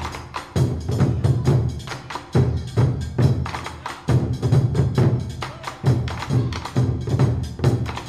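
Music with a steady, driving percussive beat of sharp wooden-sounding strikes over a strong low drum.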